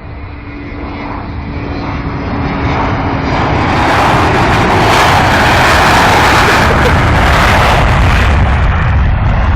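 Airplane engines, loud, the noise building over the first four seconds and staying at its loudest from about five seconds in.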